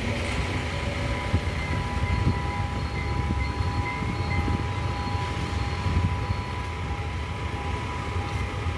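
A steady low engine rumble, as of a diesel idling, with a steady two-note tone over it that stops near the end.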